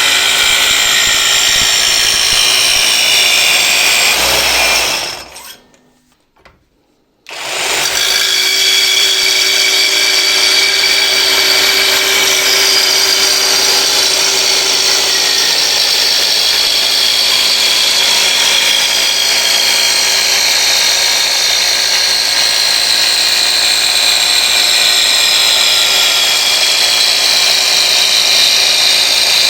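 Power tool cutting, running continuously with a high whine that slowly falls in pitch. It stops for about two seconds about five seconds in, then starts again.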